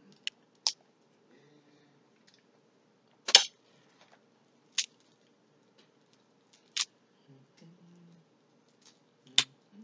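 King crab leg shells cracking and snapping as they are broken open: about six sharp, scattered cracks, the loudest a little over three seconds in.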